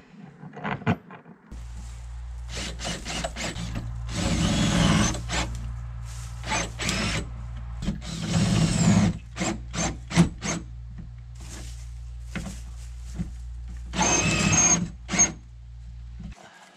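A hand-held power tool running in three short bursts of about a second each, with clicks and knocks from handling between them. Under it all is a steady low hum that starts shortly after the beginning and cuts off near the end.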